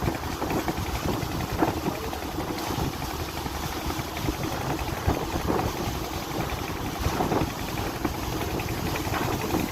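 Passenger boat's engine running steadily, heard on board.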